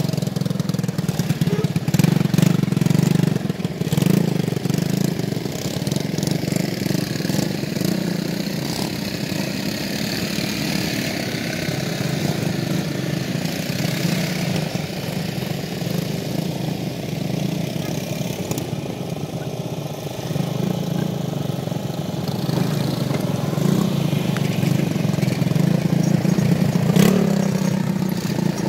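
Small ATV (quad bike) engines running, a steady low drone that carries on without a break.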